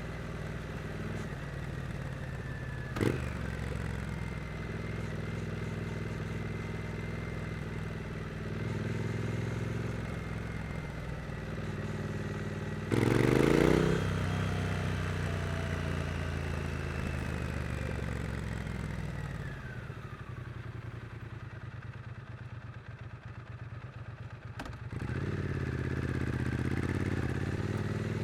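Triumph Street Twin 900 cc parallel-twin engine riding at moderate revs, with a sharp click about three seconds in. About halfway through comes a sudden hard throttle blip, the loudest moment, as the rider tries to lift the front wheel without the clutch. The engine then drops back toward idle and picks up again near the end.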